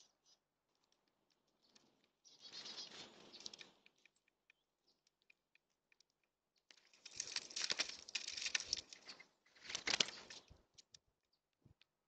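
Mourning doves and finches at a seed feeder: light pecking clicks on seed, with three louder bursts of scuffling and wing flapping about two, seven and ten seconds in.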